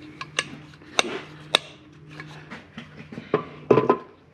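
Metal tools and parts being handled: about half a dozen sharp clinks and knocks, with the loudest cluster near the end.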